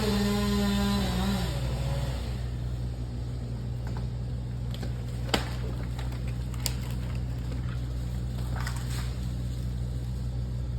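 A motor vehicle engine running steadily, its revs falling within the first two seconds and then holding at a low, even pitch. A single sharp knock comes about halfway through.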